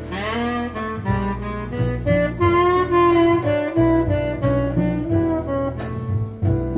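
Recorded jazz ballad played back through a Western Electric 43A valve amplifier and loudspeakers: an instrumental passage, with a lead melody that opens with a rising slide and then holds long notes over bass.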